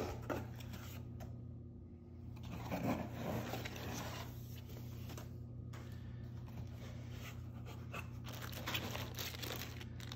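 Cardboard shipping box being handled: flaps folded open and scraping, with rubbing and rustling as items are moved inside. A plastic bag crinkles near the end, over a steady low hum.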